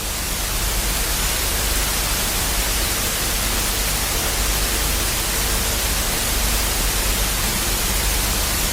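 Steady radio static: the hiss of a weather radio with no signal, the station's transmitter off the air. A faint low hum runs under the hiss.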